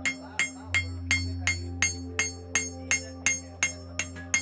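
Hand hammer striking a red-hot high-carbon steel knife blade on an anvil, forging it in a steady rhythm of about three ringing blows a second.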